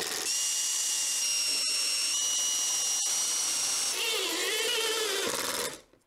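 A Makita cordless impact driver drives screws into plywood. It gives a steady high whine, which changes to a lower, wavering rattle about four seconds in, then stops.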